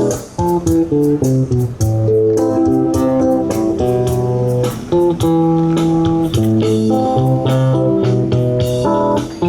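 Guitar music: a melody of plucked, held notes over a bass line, played by a young street musician.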